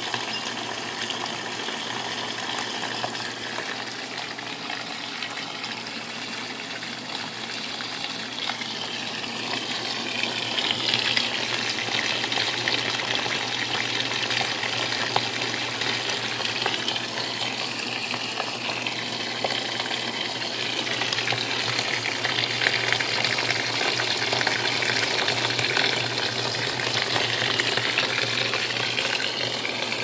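Top-loading washing machine filling: water gushing steadily from the inlet into the drum, over a steady low hum.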